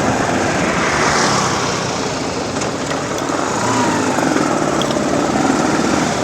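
Motorbike running on the move: a small engine under a steady rushing noise.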